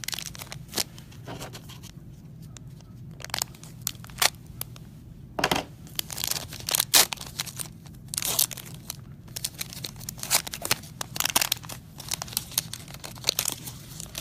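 A trading card pack's wrapper being torn open and crinkled, with the cards and packaging handled in a run of irregular small crackles and clicks.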